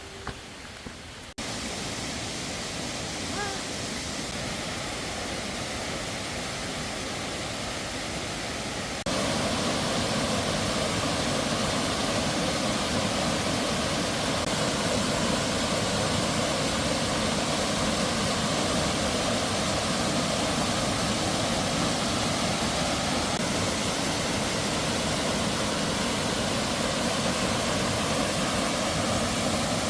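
Steady rushing of a mountain valley stream's flowing water. It jumps up abruptly about a second in and jumps louder again about nine seconds in.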